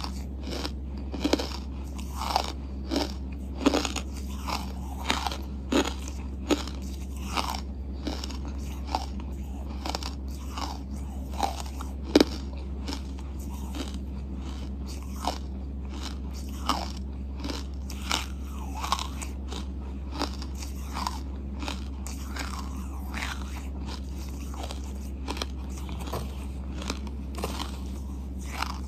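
Close-miked biting and chewing of hard charcoal chunks: sharp crunches about once a second, denser and louder in the first half and growing sparser and softer toward the end as the bite is chewed down.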